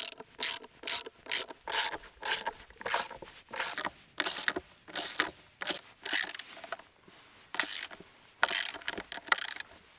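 Hand ratchet wrench and socket driving a large hex-head wood screw through a washer into a wooden bench plank. The ratchet clicks in repeated short strokes, about two to three a second, with a brief pause about seven seconds in.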